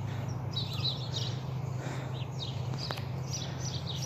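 Songbirds chirping, many short high calls over and over, above a steady low hum. A single sharp click about three seconds in.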